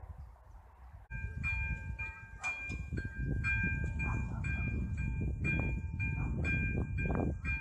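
Electronic railway level-crossing warning bell ringing as the barriers come down, starting about a second in and pulsing about twice a second with a bright ringing tone, over a low rumble.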